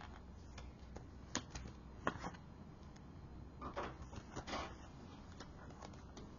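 A sheet of calendar paper being folded and creased by hand for origami: faint rustling with two sharp crackles about one and two seconds in, then a longer crinkling rustle a little past the middle.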